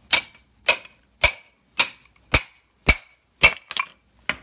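Hammer striking a 29 mm socket set against the inner wheel bearing inside a Geo Metro rear brake drum, driving the bearing out: sharp metallic blows about two a second, each with a short ring. Around three and a half seconds in the steady rhythm breaks into a brief clatter, followed by one more blow.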